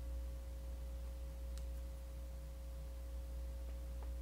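Room tone: a steady low electrical hum with a faint steady whine over it, and a faint tick about a second and a half in.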